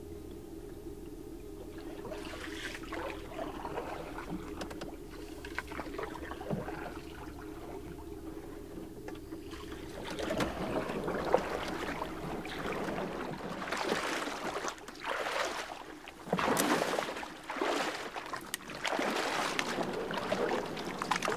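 A canoe being worked through a shallow, reed-choked river: paddle and water sloshing, with grass and brush rustling against the hull. It is quiet for the first ten seconds or so, then comes in repeated louder swells of splashing and rustling.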